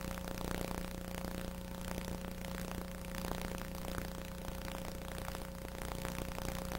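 Steady electrical hum and hiss of a blank stretch of recording, with no programme sound.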